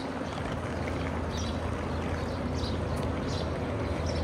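Steady low outdoor rumble of wind on the microphone and distant traffic, with light footsteps on paving at a walking pace, about three steps every two seconds.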